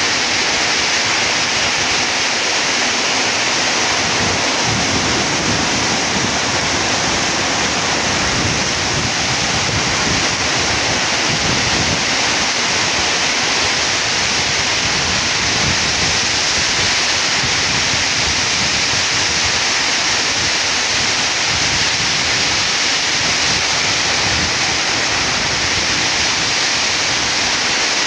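Heavy monsoon downpour, a steady loud hiss of rain driven by gusting storm wind.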